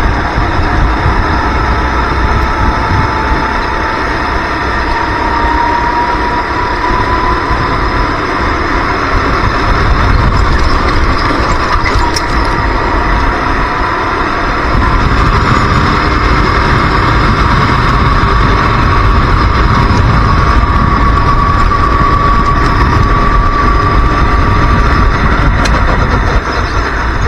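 Racing kart engine running at high revs, its pitch climbing slowly as the kart gathers speed, easing briefly, then climbing again. Wind rushes over the onboard microphone underneath.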